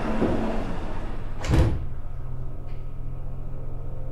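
Sliding doors of a Seibu 6000 series commuter train closing with one thud about a second and a half in, heard from inside the car. After the thud the platform noise is shut out, leaving a low steady hum, and a light click follows about a second later.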